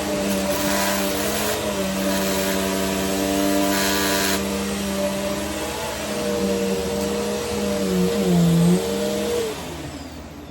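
Vacuum cleaner running steadily, its pitch wavering briefly near the end, then switched off and winding down.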